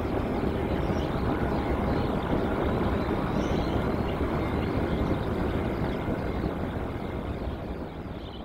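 Jet airliner engines during a landing: a steady rushing noise that fades out near the end.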